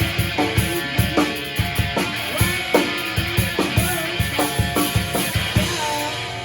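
Rock band music: a drum kit keeps a steady beat of about two and a half hits a second under electric guitar with bending notes. The drums drop out near the end, leaving guitar ringing.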